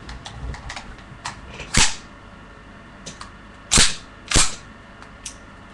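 CZ75 gas blowback airsoft pistol firing three shots. Each is a sharp crack, one about two seconds in and two in quick succession near four seconds, with light clicks of handling between them.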